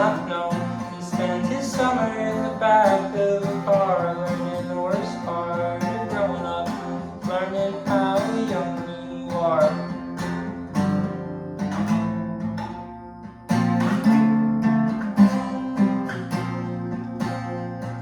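Music: an acoustic guitar strumming chords, with a singing voice gliding over it through the first half. The strumming grows fuller and louder about two-thirds of the way in.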